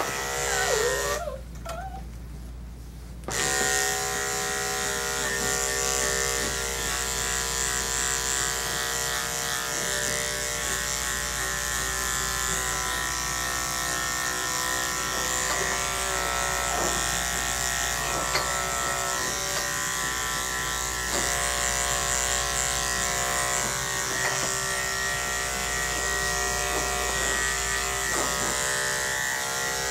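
Electric dog grooming clippers running steadily as they are worked through a Maltese's coat. They run briefly at the start, stop, and come on again about three seconds in.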